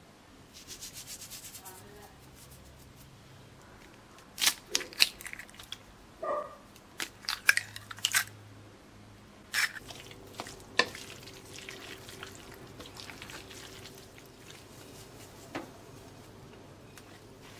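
A metal fork clinking and scraping against a ceramic bowl while eggs are mixed into a soft vegetable filling. There are sharp knocks in quick succession between about four and eleven seconds in, then quieter scraping.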